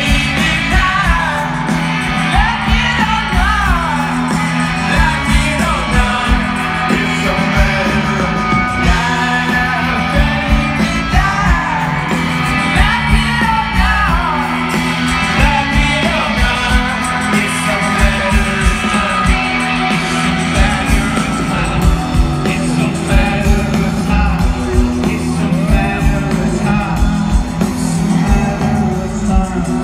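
Live rock band playing through a festival PA, heard from within the crowd: a singer over electric guitars, bass and a steady drum beat.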